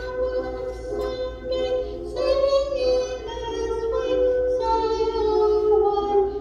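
Music: a high voice singing a slow song in long held notes.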